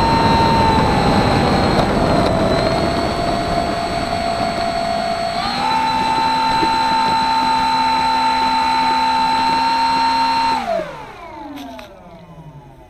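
Radio-controlled model airplane's motor and propeller whining as it taxis over grass, picked up by a camera on the plane. The pitch dips about two seconds in, steps back up about five and a half seconds in, then the throttle is cut near the end and the propeller spins down with a falling whine.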